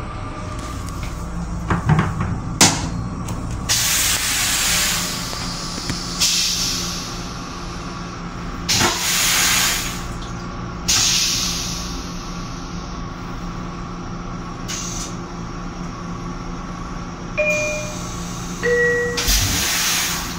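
Inside an M7 electric railcar: a steady hum, broken by several bursts of air hissing of about a second each. There are two sharp knocks about two seconds in, and a descending two-tone chime near the end.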